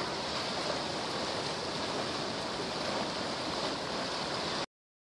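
Floodwater of the bank-full Pecos River rushing in a steady, even roar, which cuts off suddenly near the end.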